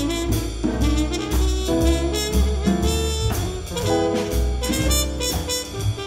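A muted trumpet playing a jazz solo over an acoustic combo, with plucked upright bass and drums.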